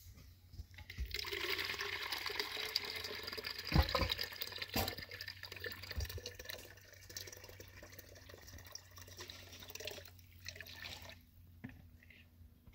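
Running water splashing for about ten seconds, with two knocks near the middle.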